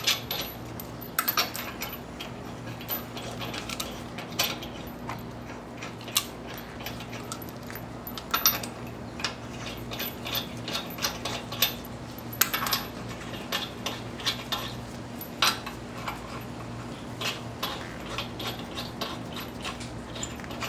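Lug nuts being spun onto the wheel studs of a Toyota Sequoia's rear alloy wheel by hand: irregular light metallic clicks and clinks as the nuts turn on the threads and knock against the wheel. A low steady hum runs beneath.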